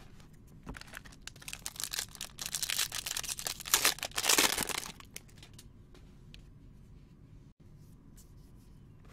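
Foil trading-card pack of 2019 Bowman Jumbo crinkling as it is handled and torn open. The crinkling builds from about a second in, is loudest about four seconds in, and stops about five seconds in.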